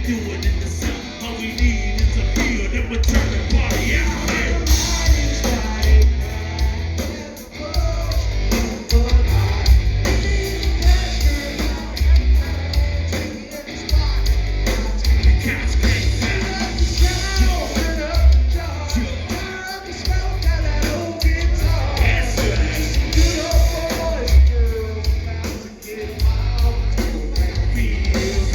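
A country-rap band playing live and loud: a heavy pulsing bass beat with a singer's voice over it.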